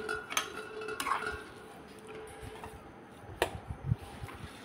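A steel spoon scooping upma out of a pan and onto a stainless steel plate: soft scraping and light clinks, with a sharp tap of metal on metal about three and a half seconds in, followed by a few soft thuds.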